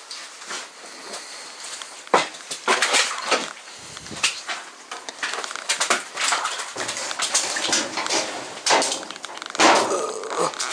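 Footsteps crunching over debris on a cluttered floor, with rustling and scattered clinks and knocks. The sharpest come about two seconds in, around six seconds, and near the end.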